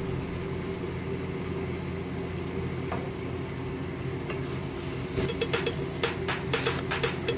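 Curry masala sizzling in a pan. From about five seconds in, a spoon stirs it with quick, irregular scraping and tapping strokes against the pan.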